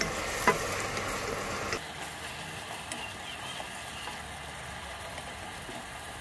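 Tuyo, mushroom and tomato mixture sizzling as it simmers in a pan, with one sharp clack of a utensil on the pan about half a second in. The sizzle drops much quieter about two seconds in.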